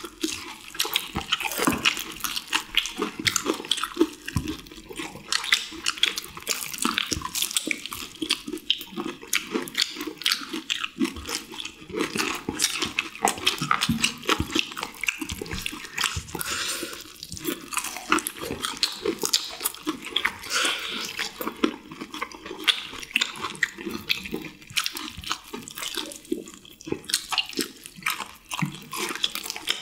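Several people chewing honey-glazed fried chicken close to the microphone: a dense, unbroken run of crunches and mouth clicks.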